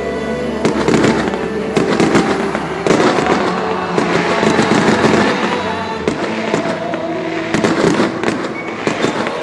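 Fireworks crackling and banging in rapid, irregular cracks, with music playing underneath.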